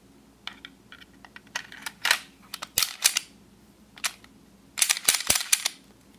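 Clicks and clacks of a Glock pistol being reassembled by hand as the steel slide is fitted and slid back onto the polymer frame. There is a quick rattle of several clicks close together about five seconds in.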